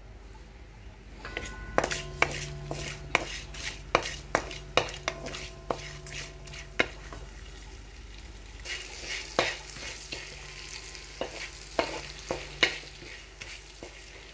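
A wooden spatula stirs and scrapes bay leaves and black peppercorns around a steel pot of hot oil, with repeated sharp clicks and taps against the metal. The oil sizzles as the whole spices temper, louder from about halfway on.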